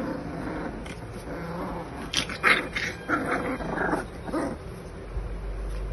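Pit bull puppies giving a quick run of short cries, clustered about two to four seconds in.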